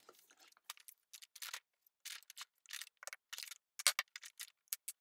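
A brown paper bag rustling, with a run of short clicks and taps as craft supplies (scissors, pencils, glue stick) are taken out of it and set down on a wooden table one after another.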